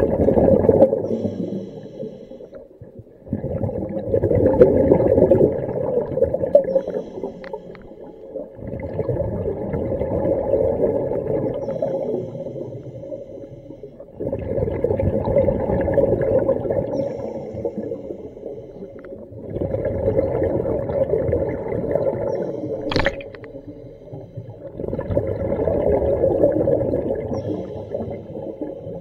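A diver breathing underwater through a cheap hookah-rig regulator: six breaths, each a bubbling, humming rush of two to three seconds, coming about every five to six seconds. A single sharp click about 23 seconds in.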